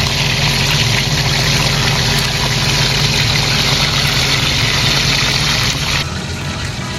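Whole red grouper deep-frying in hot oil in a wok, the oil sizzling steadily and loudly over a steady low hum. The sizzling drops away about six seconds in.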